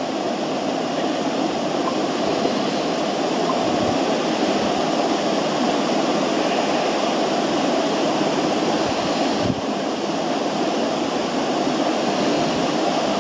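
Steady rushing room noise with no distinct events, like a fan or air conditioner running, with a brief slight dip about nine and a half seconds in.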